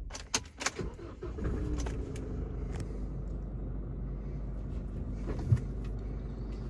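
2018 Isuzu D-Max 1.9-litre diesel engine started from inside the cab: a few clicks of the key, then the engine catches about a second in and settles into a steady idle.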